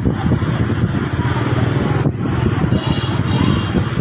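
Street traffic with motorbike engines running close by: a steady low rumble that does not let up.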